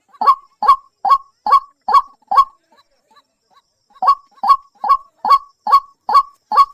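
White-breasted waterhen (dahuk) calling: a run of six short, identical notes at about two and a half a second, a pause of about a second and a half, then another run of seven.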